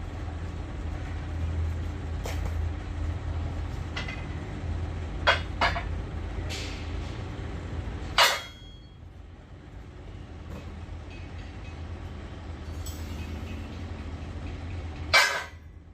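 Heavy steel parts clanking in a workshop, several separate metal knocks over a steady low machine hum. The hum drops away after a loud clank about eight seconds in, and another loud clank comes near the end.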